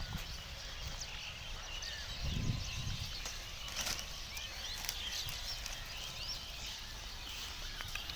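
Open-field ambience with many small birds chirping throughout, and a brief low rumble about two to three seconds in.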